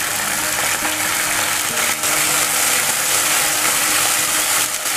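Canned baked beans in sauce sizzling loudly as they are poured into hot oil in a frying pan, a steady crackling hiss.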